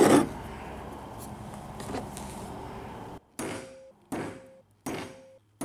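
A pointed marking tool pressed through a 3D-printed hole-marking jig onto a steel tube. There is a knock at the start, then four short clicks about three-quarters of a second apart, each leaving a brief ringing tone.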